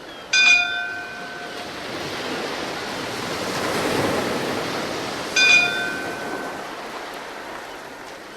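Sea surf: one wave swells and recedes, with a bell struck twice about five seconds apart, each strike ringing out over about a second.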